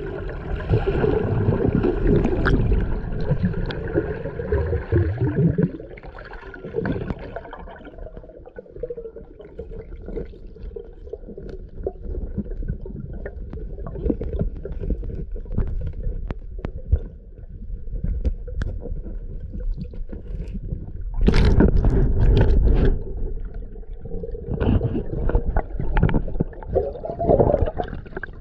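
Muffled underwater noise around a diver: water rushing and bubbles gurgling past the camera, loud in the first few seconds, quieter with scattered clicks through the middle, and loud again in the last third as the diver rises through bubbles.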